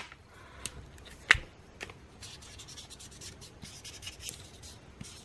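A drying-out marker scribbling on paper, a faint scratchy rubbing, with a sharp click about a second in, such as a pen being set down or uncapped. The marker barely works anymore.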